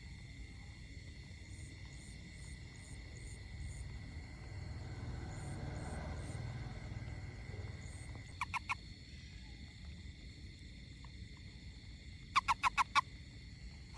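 A frog calling in short bursts of quick pulses: a group of about three pulses a little past the middle, then a louder run of five rapid pulses near the end, over a steady high-pitched night chorus of insects.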